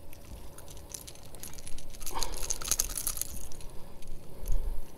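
Close-up clicking and crackling as a hard plastic lure's hooks are worked out of a hybrid striped bass's mouth by hand. A dense run of quick clicks comes about two seconds in.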